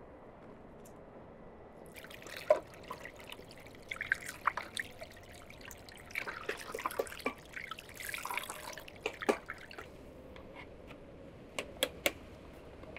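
Water from a tap splashing over a bowl of eggs as a hand rubs and rinses them, with light knocks among the splashing, from about two seconds in until about ten seconds. A few sharp clicks follow near the end.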